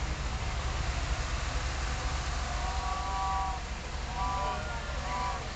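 Large vehicle engine running close by with a steady low rumble, with a few short high horn toots over it: one held about a second, then two brief ones near the end.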